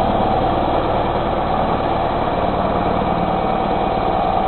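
Electric 450-size RC helicopter running on Flywing FW450 mechanics in flight: a steady motor whine over the fast chop of the main rotor.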